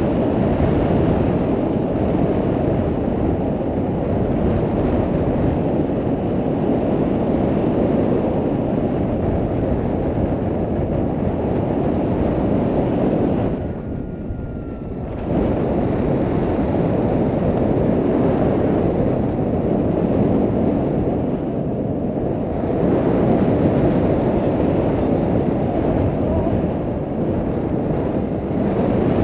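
Airflow buffeting a helmet or action camera's microphone during a paraglider flight: a loud, steady low rush of wind noise that eases briefly about halfway through.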